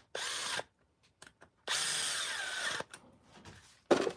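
Cordless drill with a bit running on a turbocharger, in two bursts: a short one at the start and a longer one of about a second in the middle, its pitch wavering as the speed changes. A sharp clatter near the end.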